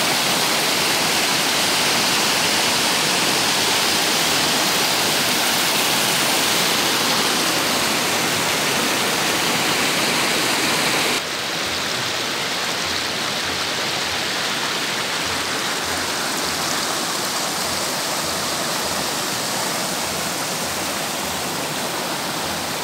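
Water rushing over small rocky cascades in a shallow stream, a steady rush. About eleven seconds in it changes suddenly to a slightly softer flow.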